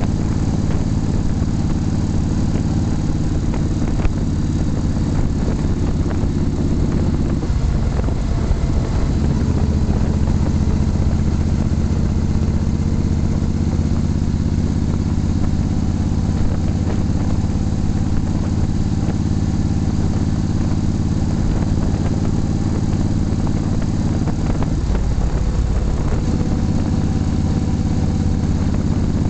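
Motorcycle engine running under way at road speed, a steady low engine note. Twice, about a quarter of the way in and near the end, the note breaks up briefly and settles again at a different pitch.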